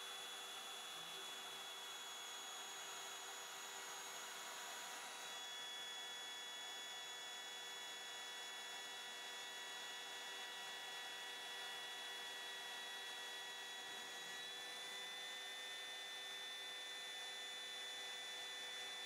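Router spindle on a homemade MDF CNC machine running as it machines holes and a pocket in an MDF block: a steady whine of several held tones. Its pitch steps slightly higher about five seconds in, and again about two-thirds of the way through.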